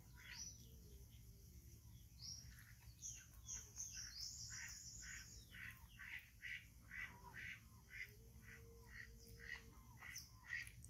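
Faint birds chirping: a regular run of short calls about twice a second, with a brief burst of higher twittering about three to five seconds in.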